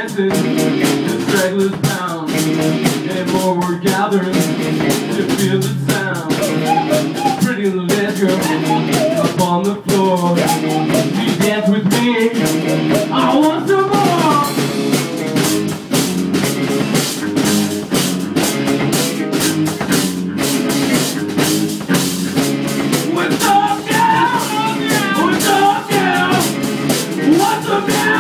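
Small rock band playing live: electric guitar, bass guitar and drum kit.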